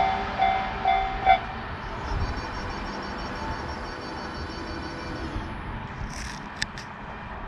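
Japanese level crossing bell ringing its 'kan-kan' warning at about two strokes a second, then cutting off about a second and a half in. A steady rumble of a train on the rails carries on after it, with a faint high whine in the middle and a few sharp clicks near the end.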